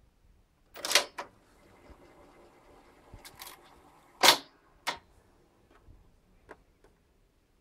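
Mechanical clicks and clunks from a 1978 Sanyo Betacord VTC9300PN top-loading Betamax recorder as its piano-key buttons are worked and the tape transport shifts, with a faint running sound between the clunks. The loudest clunk comes a little over four seconds in.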